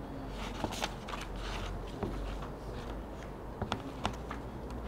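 Pages of a book being turned and paper rustling close to the podium microphones, a scatter of short crackles and clicks over a steady low hum from the sound system, while the reader searches for a passage.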